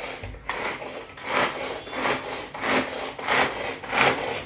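Hand-pulled string food chopper being yanked over and over, each pull a rasping whirr of its blades spinning through coarsely cut onion, about one and a half pulls a second.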